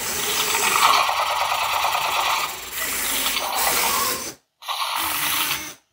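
Servo motors of Robosen K1 humanoid robots whirring rapidly as the robots drive their arms and legs through a performance routine. The whirring stops abruptly a little over four seconds in, then comes back for about a second.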